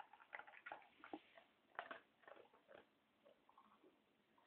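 English Springer Spaniel eating from a plastic bowl: faint, irregular crunching and clicking of chewing, thinning out after about three seconds.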